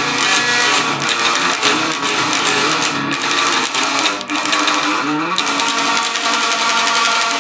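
Metal music led by electric guitar, loud and continuous, with a rising pitch slide about five seconds in.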